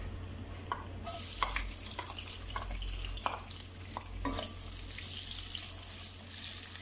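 Sliced onions frying in hot oil in a metal karahi: sizzling starts suddenly about a second in and keeps on, with a wooden spoon knocking and scraping against the pan as the onions are stirred.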